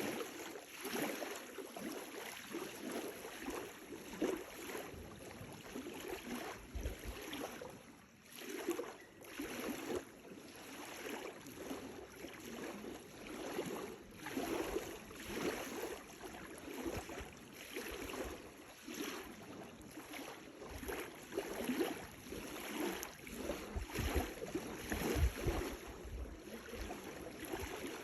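Small lake waves lapping on the shore, a soft wash that swells and falls about once a second, with a few low rumbles near the end.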